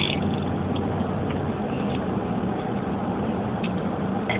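Steady low hum like an idling engine, even in level throughout.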